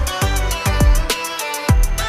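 Background music: an electronic track with a steady beat of deep kick drums that drop in pitch, under a melody.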